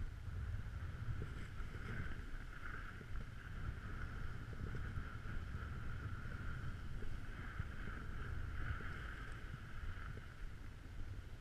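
Wind buffeting a moving action camera's microphone in an uneven low rumble, over the steady hiss of a snowboard sliding across packed snow.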